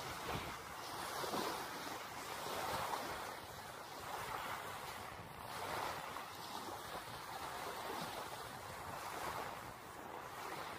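Small waves washing up on a sandy beach, the surf swelling and easing every second or two.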